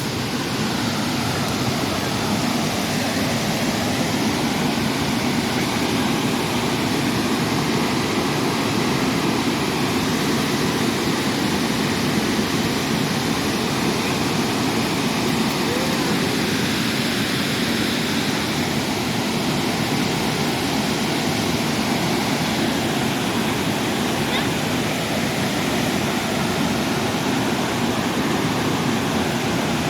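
Waterfall rushing: a loud, steady, unbroken roar of falling water.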